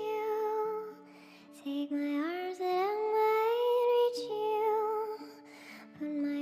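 Nightcore remix of a song, sped up and pitched up: a high sung vocal holds long notes and slides between them over a sustained backing, dropping away briefly about a second in.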